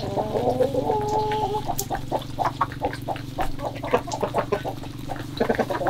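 Chickens pecking grain off a wet concrete yard: quick, irregular taps of beaks on the ground, with a drawn-out chicken call in the first second and a half.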